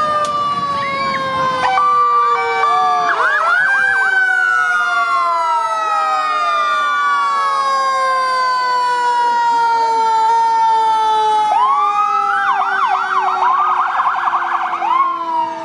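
Several emergency-vehicle sirens sounding together at different pitches. Long wails fall slowly, with fresh wind-ups about three seconds in and again near the end, and a fast warbling yelp joins near the end.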